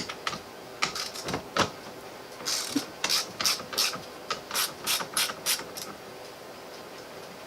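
Socket ratchet clicking in short runs of strokes, about two to three a second, as the 21 mm steering-wheel nut is loosened and backed off the steering column. The clicking stops about six seconds in.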